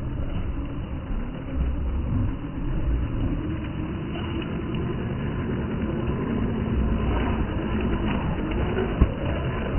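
Electric motor and gearbox of an MN86KS RC crawler whining as it drives through the undergrowth, the whine wavering with the throttle and growing louder as the truck comes closer. There is a single sharp click about nine seconds in.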